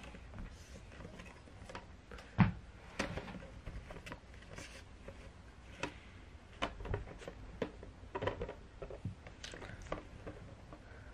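Scattered light clicks and knocks of a hard plastic cat flap and its frame being handled while a cat noses at it and pushes through, with one louder knock about two and a half seconds in.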